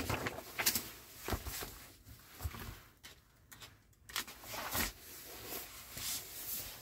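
Rustling of a glossy paper magazine handled by hand: the cover is lifted and pages turned, with a string of irregular short rustles and light taps.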